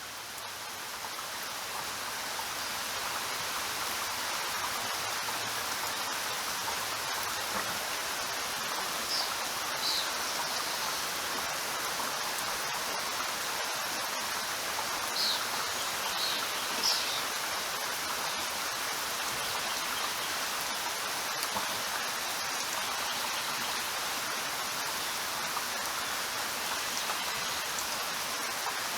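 Steady rain falling, an even hiss that swells in over the first few seconds and then holds. A few brief high chirps sound through it around the middle.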